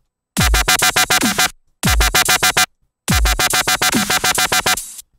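Dubstep screech bass from a Massive synth patch, playing through wave-shaper distortion: a harsh, rapidly stuttering tone at about ten pulses a second. It comes in three short phrases separated by brief silences, each opening with a deep low hit and a downward-sliding tone.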